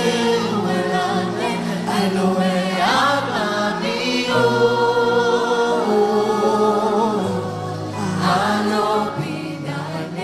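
Gospel worship music: voices singing together over steady held low notes that change chord a few times, easing slightly in loudness near the end.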